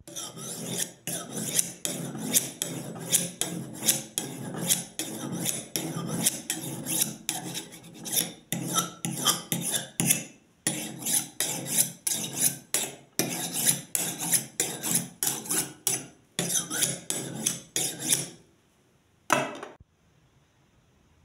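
Steel kitchen knife blade scraped rapidly back and forth across the rough unglazed foot ring of an upturned ceramic bowl, sharpening the edge as on a whetstone. It makes a run of rasping strokes, about two to three a second, broken by a couple of short pauses, and ends with one last stroke near the end.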